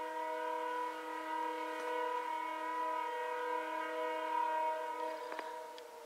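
Air horn of a CN diesel freight locomotive, the lead GP38-2, sounding one long chord of several notes at once for about five seconds, then fading near the end.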